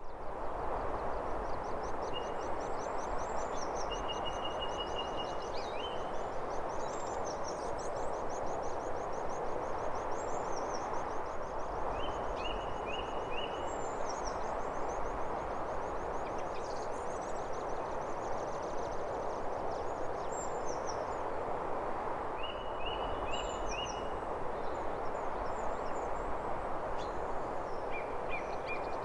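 Outdoor birdsong over a steady hiss. A long, fast, high trill runs through the first two-thirds, and short runs of three or four chirps come back every several seconds.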